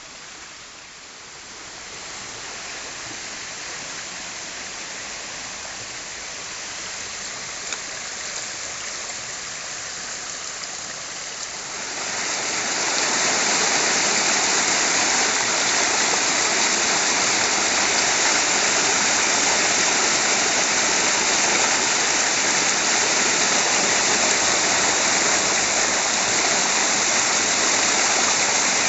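Rushing water in a heavy rainstorm: a downpour and a stream swollen to overflowing after a short cloudburst. The steady rush steps up sharply about twelve seconds in and stays loud.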